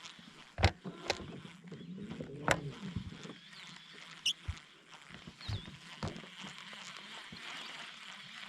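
Scattered knocks and clicks, the loudest about half a second in and two and a half seconds in, over a faint steady background, with a brief high chirp about four seconds in.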